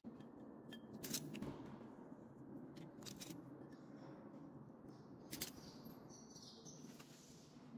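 Faint steady low hum with several sharp light clicks and knocks: two about a second in, two around three seconds, and one about five and a half seconds in.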